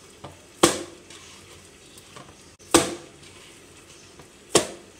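Soft kneaded dough thrown down into a plastic bowl three times, about two seconds apart, each landing a sharp slap.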